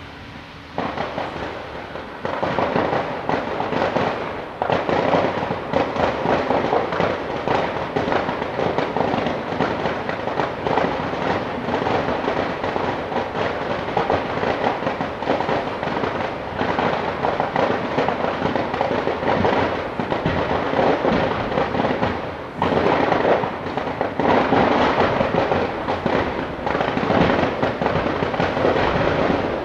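Fireworks display going off in a dense, continuous barrage of crackles and bangs. It swells about a second in, eases briefly about three-quarters of the way through, then comes back as loud.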